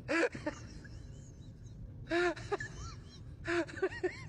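A baby's voice: three short, high-pitched cries or calls, one at the start, one about two seconds in and one at about three and a half seconds.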